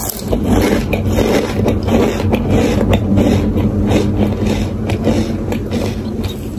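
Close-miked crunching and chewing of a mouthful of Lay's potato chips, a dense run of crisp, irregular cracks many times a second.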